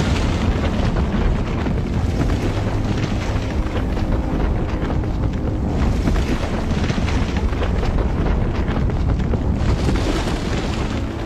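Steady, deep rumble of grinding rock as a rock formation on a cliff shifts and moves.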